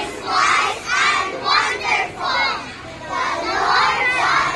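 A group of young children chanting and shouting together in unison, in short bursts of a word or two, then a longer held shout near the end.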